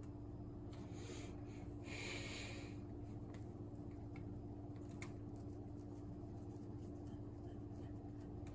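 Steady low hum, with a breathy exhale about two seconds in and a few faint clicks.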